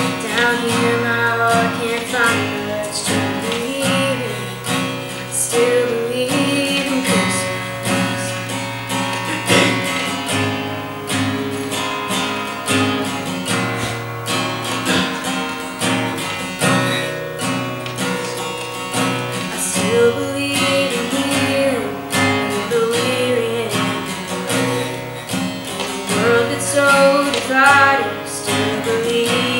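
Acoustic guitar strummed in a steady accompaniment, with a female voice singing a melody over it.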